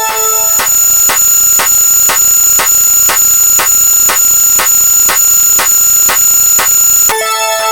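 Electronic counter sound effects: an even ticking about three times a second over a steady high electronic tone, with a short chime of several notes sounding at the start and again near the end.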